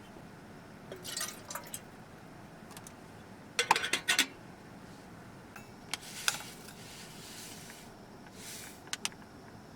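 Tableware being handled: several short bursts of clinks and knocks, the loudest a cluster about four seconds in, with a brief soft hiss near the end.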